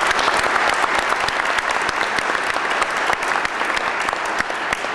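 Audience applauding: many hands clapping together, slowly dying down.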